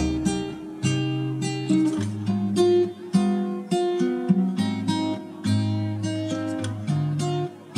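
Background music: a melody of plucked notes on acoustic guitar.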